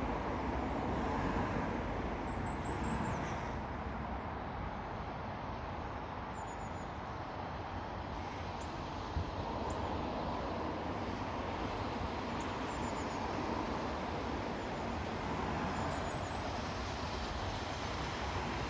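A train running past: a steady rumble and rush of wheels on rail. Faint high bird chirps come now and then.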